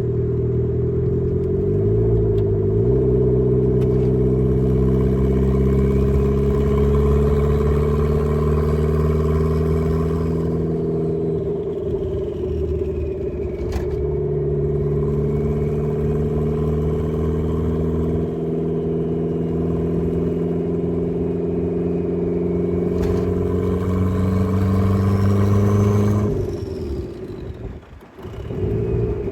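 Turbocharged Mazda Miata four-cylinder engine pulling steadily under way. Its pitch shifts about two seconds in and dips briefly midway. Near the end the sound drops off sharply, then picks up again.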